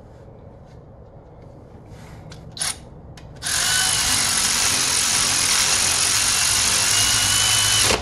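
Cordless power drill running steadily for about four and a half seconds, starting about three and a half seconds in and cutting off sharply. A short rattle comes a little before it.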